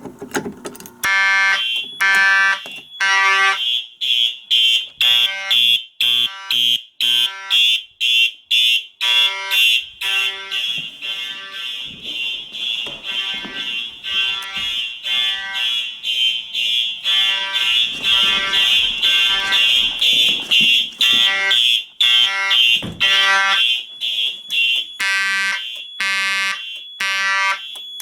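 Fire alarm horns sounding together in march-time pulses, a rapidly repeating horn blast over a steady high-pitched alarm tone.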